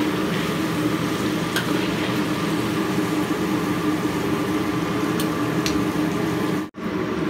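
Sweet potato wedges frying in hot cooking oil in a wok: a steady sizzle with a few faint clicks as a metal spatula moves them. The sound drops out for a moment near the end, then the sizzle resumes.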